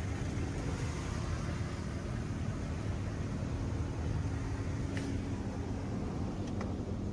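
Steady hum and hiss of a touch-free automatic car wash, heard from inside the car's closed cabin, with two faint clicks near the end.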